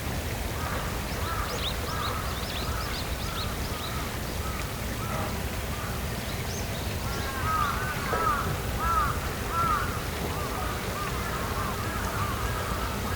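Birds calling in a quick run of short rising-and-falling notes, several overlapping and loudest in the middle stretch, with a few thin high-pitched notes in the first seconds, over a steady low background rumble.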